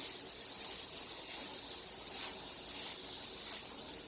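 Steady high hiss of water misting from a hand spray bottle as a pet cockatoo is sprayed down for a shower.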